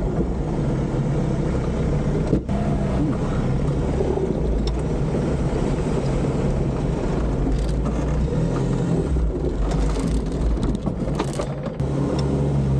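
Toyota 4x4's engine running steadily at low revs while off-roading, with a few sharp knocks, one about two seconds in and several more near the end.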